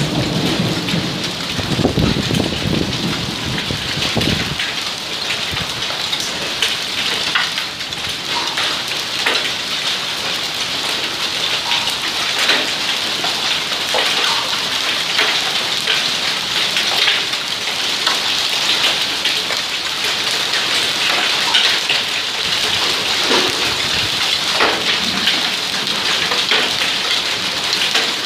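Heavy hail mixed with rain pelting wet stone and brick paving: a dense, steady patter dotted with many small sharp clicks of hailstones striking. A low rumble runs under it for about the first four seconds.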